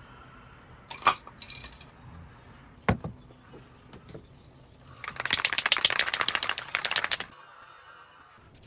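Two sharp clicks, about a second and three seconds in, then roughly two seconds of rapid scratchy strokes of a paintbrush scrubbing paint onto a surface, stopping suddenly.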